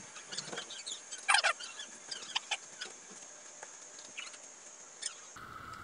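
Fast-forwarded background sound: scattered short clicks and chirpy noises, thickest in the first half, over a steady high whine. Near the end it cuts abruptly to a steadier, lower hum.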